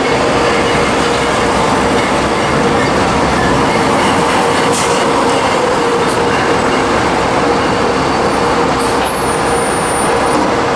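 Loud, steady city street traffic noise with a steady hum running through it.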